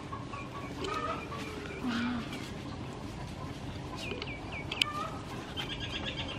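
Small birds chirping: a run of short falling chirps about four seconds in and a quick high trill near the end. There is one sharp click just before the five-second mark.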